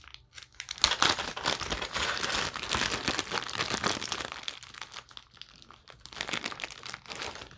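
A small plastic bag of hardware crinkling and rustling as it is handled to get at computer motherboard standoffs, with scattered small clicks, easing off briefly about five seconds in.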